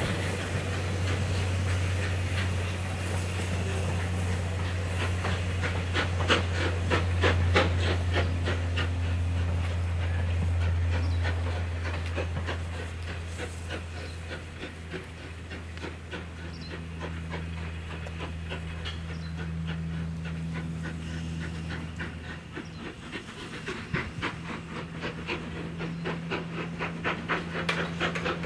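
Steam locomotive working, with hissing steam and quick, regular exhaust beats over a steady low hum. The beats are loudest a few seconds in and come again near the end.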